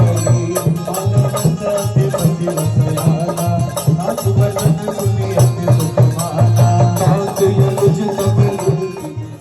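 Devotional bhajan played live through a PA: a dholak beating a steady rhythm under an electronic organ melody, with bright percussion strokes on the beat.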